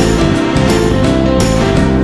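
Background music with a steady beat and plucked-string sounds.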